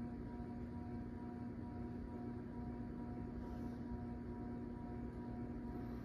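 Westinghouse Industrial 56-inch ceiling fan running below its high setting on a rotary speed control: a steady, definitely noisy motor hum with several fixed tones over a faint even noise.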